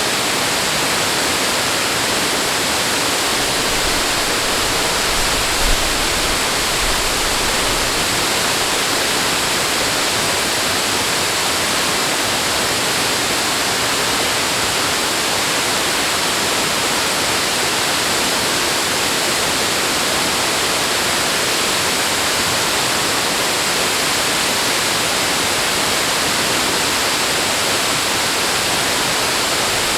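Steady rushing water, an even unbroken roar like a waterfall or fast stream. A brief low bump about six seconds in.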